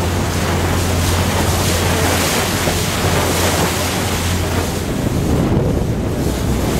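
Wind buffeting the microphone over the rush of water alongside a boat under way, with a steady low engine hum that fades about five seconds in.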